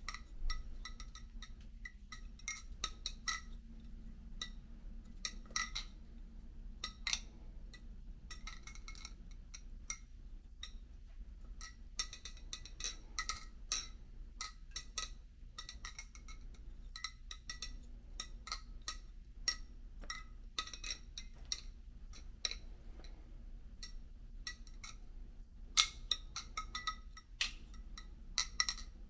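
A Serif balisong (butterfly knife) being flipped: a run of irregular metallic clicks and clinks as the handles swing and knock against each other and the blade, each click ringing briefly.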